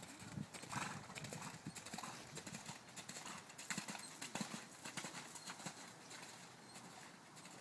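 Hoofbeats of a grey Irish Draught Sport Horse cantering on wet arena footing, a run of dull, evenly spaced thuds.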